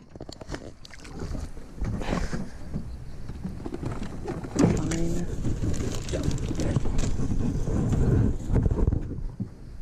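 Knocks and rattles of gear against the hull of a small aluminium boat, over a steady low rumble of wind on the microphone.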